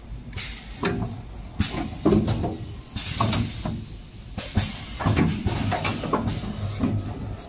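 Kitchen towel bundle packing machine running: a steady low hum with irregular short bursts of hissing and rustling as roll bundles are pushed through and wrapped in plastic film.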